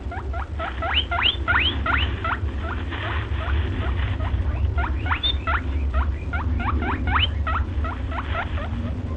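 A fast series of short, high squeaks, each rising sharply in pitch, about three a second, over a steady low rumble. The sound is offered as the call of the mythical wild haggis.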